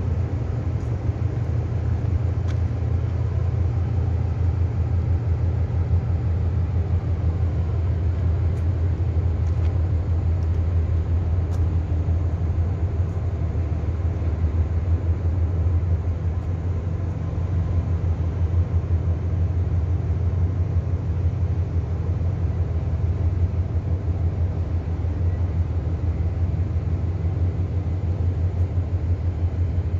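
Steady low rumble of a large container ship's engine and propeller as the ship passes close by under way.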